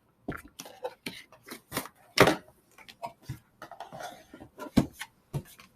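A shipping box and its packaging being handled and opened by hand: an irregular run of clicks, scrapes and knocks, with the sharpest knocks about two seconds in and again near the end.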